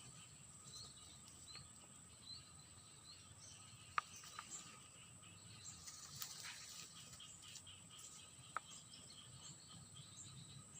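Quiet rural ambience: scattered short bird chirps over a steady high-pitched insect drone, with two sharp clicks, one about four seconds in and one about eight and a half seconds in.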